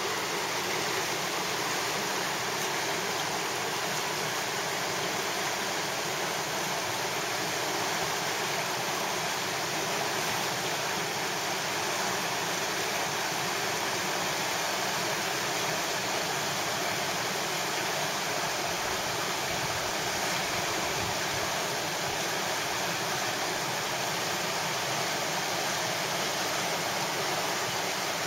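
River rapids rushing steadily, a constant roar of whitewater with no break.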